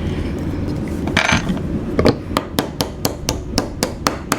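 Light hammer taps, about four a second, starting about two seconds in, driving a pin into a Glock 19 pistol's frame; a short scrape comes just before.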